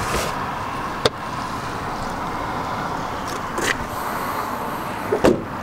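The car trunk's carpeted floor cover being handled: a sharp click about a second in, then a couple of dull knocks later, over a steady hiss of background noise.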